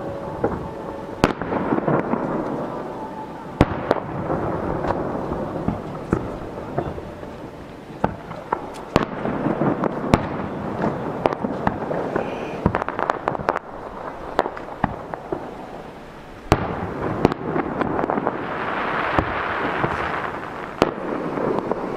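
Aerial firework shells launching and bursting in quick succession: sharp booms every second or two, each trailing off in a rolling echo, over a continuous crackle. A denser crackling spell comes near the end.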